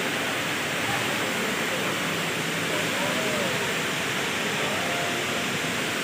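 Multi-storey indoor waterfall: a steady rush of water falling from a great height down the cascade into the pool below.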